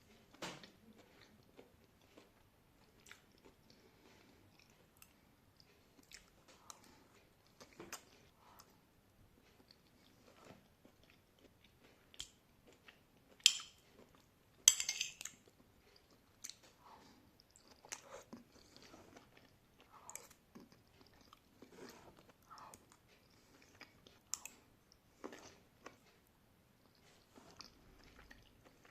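A person chewing and crunching food, close to the microphone, with irregular wet smacks and crunches and two loud crisp bites about halfway through.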